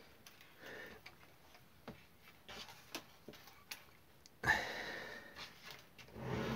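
Light clicks and taps of a brass live-steam model locomotive being handled and turned around on a cutting mat, with a louder handling noise about four and a half seconds in.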